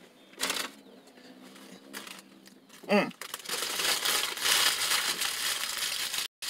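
Paper food wrapper crinkling and rustling for about three seconds in the second half, after a short hum-like vocal sound about three seconds in.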